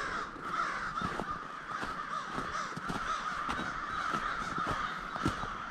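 A large flock of American crows cawing continuously, many birds calling over one another in a dense, unbroken chorus.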